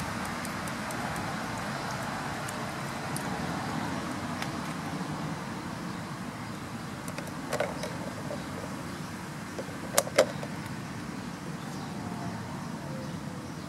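Steady outdoor background noise, with a few sharp clicks past the middle, the loudest a pair close together about ten seconds in.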